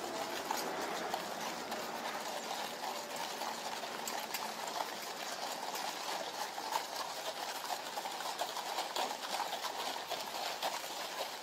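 Horses walking on a sandy gravel parade ground, their hooves making irregular clip-clops over a steady background murmur.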